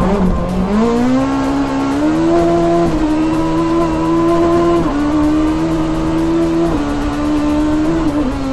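A front-wheel-drive Toyota Starlet rally car's engine revving hard at speed. Its pitch climbs about a second in, holds high, then drops suddenly and picks up again several times.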